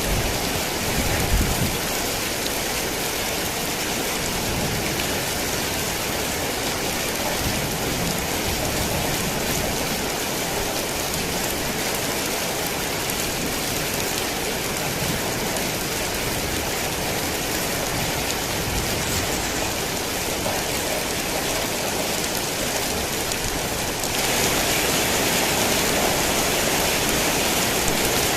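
Heavy rain falling steadily, a dense even hiss. About 24 seconds in it suddenly becomes louder and brighter.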